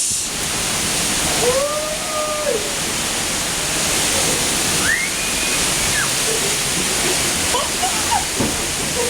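Loud, steady rushing of hurricane wind and rain. Over it come a few drawn-out rising-and-falling tones, one about a second and a half in and another about five seconds in.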